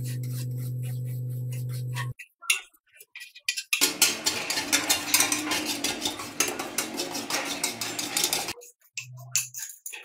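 A steady low hum for about the first two seconds, with a few faint scratches. Then, from about four seconds in, a metal scraper scrapes bubbled, softened paint off a Vespa's steel body panel in a dense run of quick, rough strokes, which stops about a second and a half before the end.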